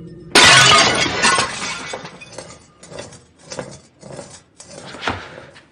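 A white porcelain vase smashing on the floor: one loud crash a third of a second in, then a scatter of clinking shards. Several softer knocks and clinks follow over the next few seconds as the broken pieces settle.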